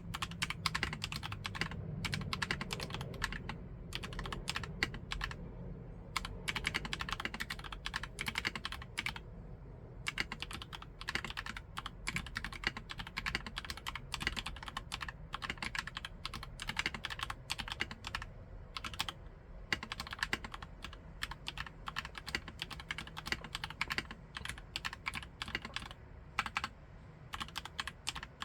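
Typing on an ABKO K660M-L68 mechanical keyboard with Kailh Nuit switches: quick runs of keystroke clacks in bursts, broken by short pauses.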